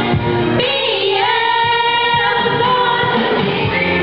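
Middle-school show choir of girls singing through microphones and a PA, holding long notes.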